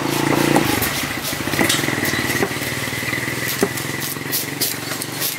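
A motor engine running close by, strongest in the first second and then steady, with a handful of sharp knocks from a knife chopping skipjack tuna on a wooden block.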